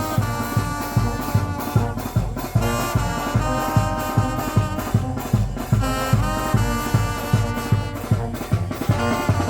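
Brass band with drums playing carnival music: trumpets, trombones and saxophones over a steady drum beat.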